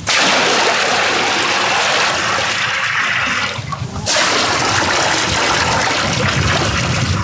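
Water rushing or gushing in two long stretches, with a brief break about three and a half seconds in.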